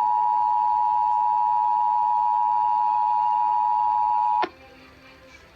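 Emergency Alert System two-tone attention signal, the 853 and 960 Hz pair, sounding as one steady loud tone that cuts off abruptly about four and a half seconds in.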